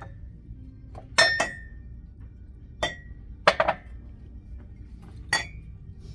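Ceramic mugs clinking against one another as they are picked up and set back down: several sharp clinks, some in quick pairs, a few with a short ring.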